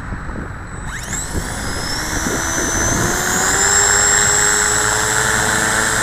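Align T-Rex 450 Pro flybarless RC helicopter's electric motor and rotor spooling up: a whine starts about a second in, rises in pitch over a few seconds, then holds steady at head speed. Wind rumbles on the microphone underneath.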